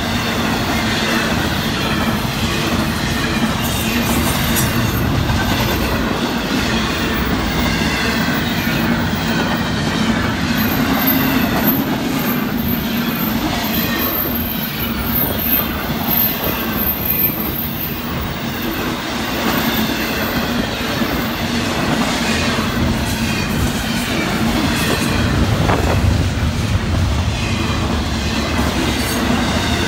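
Intermodal freight cars of a Florida East Coast train rolling past at speed. Their wheels make a steady rumble on the rails, with rapid clicking over the rail joints. A thin high squeal runs through the middle stretch.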